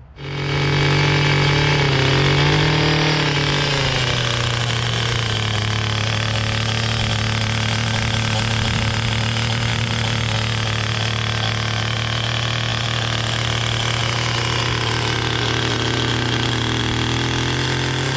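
Small gas-engine rototiller running at high speed as its tines work hard, dry lawn. The engine pitch drops a few seconds in as the tines dig in and rises again near the end. The ground is too hard for the light tiller to break up.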